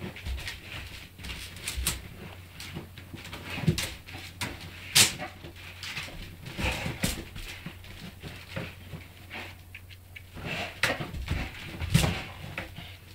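A bull terrier rummaging in a cushioned wicker dog basket with a tennis ball: irregular rustling, scraping and creaking of the wicker and cushions, with a few sharper knocks, the loudest about five seconds in and again near the end.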